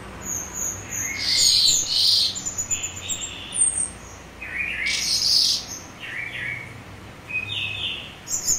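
Calandra lark singing: a run of short, varied, high-pitched chirping and twittering phrases with brief pauses between them.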